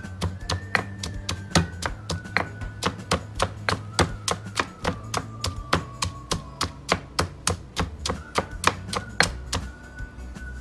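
Stone pestle pounding shallots and dried shrimp in a stone mortar (lesung batu): repeated sharp knocks, about three to four a second, that die away near the end.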